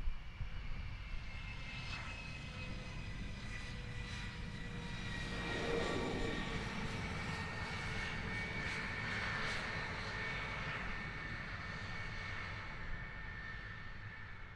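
Jet fighter's engines running with a whining roar that swells to its loudest about six seconds in and then fades, the whine sliding slightly lower in pitch as it goes.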